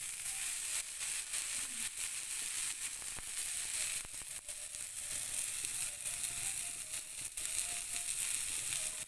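Rava-coated fish sizzling in oil on a flat iron tawa, a steady hiss with scattered small crackles, as it fries slowly over a low flame.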